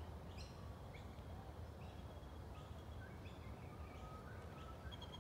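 Birds calling from the surrounding trees: several short chirps and a thin whistled note in the second half, over a faint, steady low rumble of outdoor background noise.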